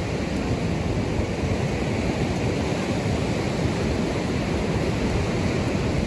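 Ocean surf washing in on the beach with wind blowing past: a steady rushing noise with no distinct breaks.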